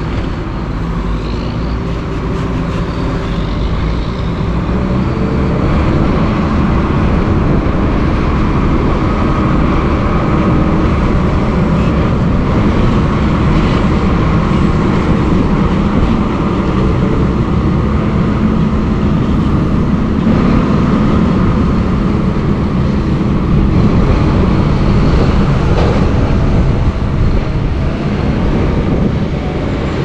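Diesel engines of big four-wheel-drive tractors running hard under load as they push corn silage up the pile with front blades, a steady heavy drone that grows louder over the first several seconds and then holds.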